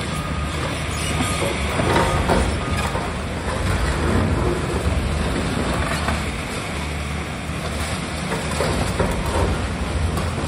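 Tracked demolition excavator's diesel engine running steadily under load, with crunches and clatters of concrete and debris being broken and falling as its arm works the building, a few sharper crashes about two seconds in and again later.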